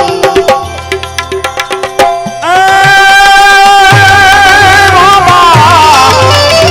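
Live Gujarati devotional bhajan music. For about two seconds there are light, quick percussion clicks. Then a loud held melodic note comes in, wavers and slides downward near the end, over hand-drum beats.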